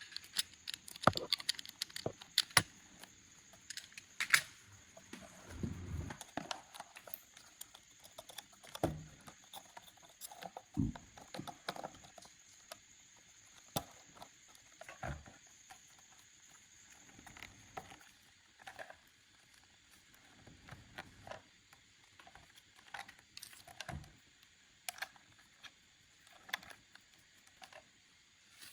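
Irregular small clicks, taps and light knocks of parts being handled during assembly, busier in the first half and sparser later.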